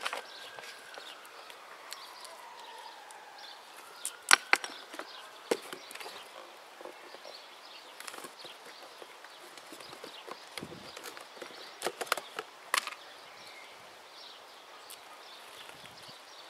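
Hands and a small tool working stony soil in a raised bed: soft scraping and rustling with scattered sharp clicks, the loudest about four seconds in and again around twelve seconds in.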